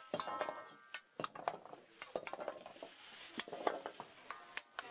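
Metal utensil clinking and scraping against a pan while food is stirred and tossed: a quick, irregular run of clinks, some with a brief metallic ring.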